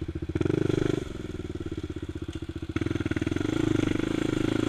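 Honda TRX400EX quad's single-cylinder four-stroke engine idling with an even pulsing note, given a short burst of throttle about half a second in, then a longer pull on the throttle from about three seconds in as the quad moves off.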